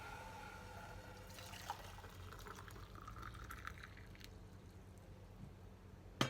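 Water being poured while making coffee, with a faint drip and trickle after the pour stops. Near the end comes a single sharp clink that rings briefly, like a cup or pot set down.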